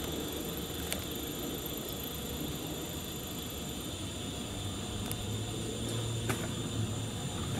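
Steady electrical hum with constant high-pitched whining tones from a parked electric train's onboard equipment, with a low hum swelling about midway.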